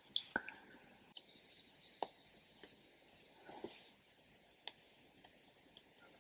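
Faint handling sounds of makeup being applied: several small, scattered clicks and taps from a brush and a liquid-highlighter dropper bottle, with a soft brushing hiss just after a second in.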